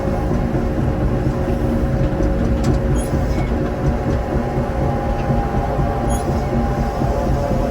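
Heavy earthmoving machine with a diesel engine running steadily under load, a dense low rumble with a constant drone.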